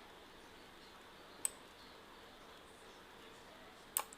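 Computer mouse clicking over faint room hiss: one sharp click about a second and a half in, then a quick double click near the end.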